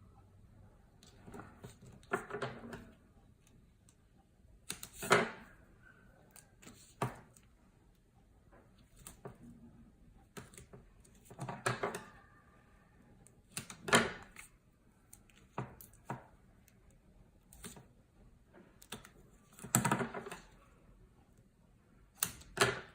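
Double-sided tape being pulled from its roll, cut and pressed onto a scored paper strip: scattered clicks, crackles and paper rustles every second or two, with a couple of short squeaks.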